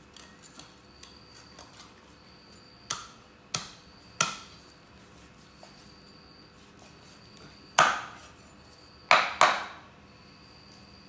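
Cleaver chopping through a raw chicken onto a wooden chopping board: six sharp chops, three close together and then three more after a pause, each with a short metallic ring.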